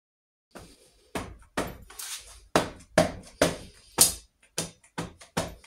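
Cylinder barrels of a Norton Commando 850 engine being knocked down over the pistons and into the piston ring clamps: a run of sharp knocks, roughly two a second and unevenly spaced, starting about half a second in.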